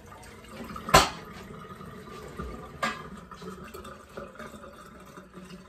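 Two sharp knocks of hard objects being set down or bumped, about two seconds apart, the first much louder, each with a short ring, over faint background noise.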